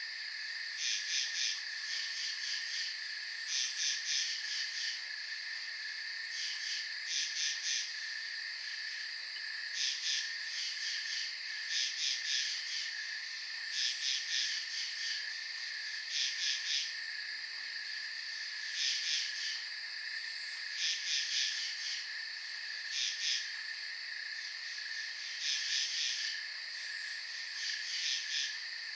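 Late-summer night insect chorus: a steady, unbroken high cricket trill underneath, with louder, higher-pitched insect calls in short groups of two or three pulses that repeat every couple of seconds.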